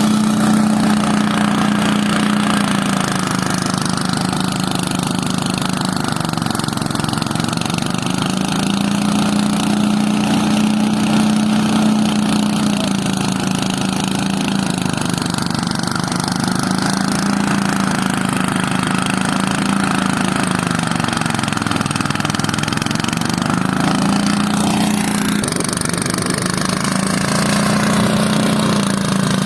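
Engine of harvest machinery running steadily. Its note sags briefly every few seconds and then recovers, as if under changing load.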